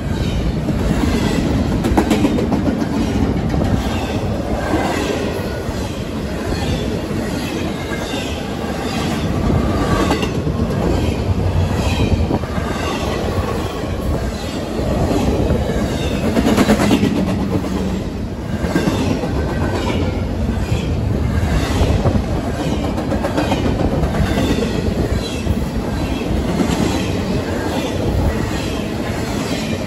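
Intermodal freight cars rolling past at track speed: wheels clicking over rail joints in a steady, repeating rhythm, with a rumble underneath and some high wheel squeal.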